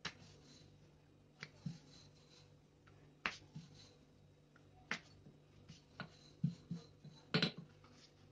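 Rolling pin tapping and knocking on a worktop as a round of dough is rolled out by hand, in scattered irregular taps with the loudest near the end, over a faint steady hum.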